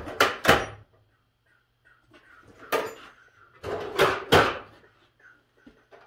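Metal hand tools clattering and clanking as they are rummaged through for a 7/16 wrench: two clanks right at the start, another a little under three seconds in, and two more around four seconds in.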